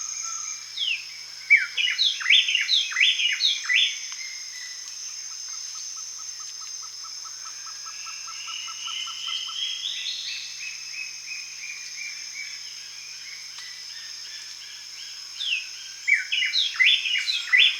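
Parrots chirping and whistling: quick bursts of short falling whistled notes near the start and again near the end, with a fast run of ticking notes and a rising whistle in between, over a steady high-pitched whine.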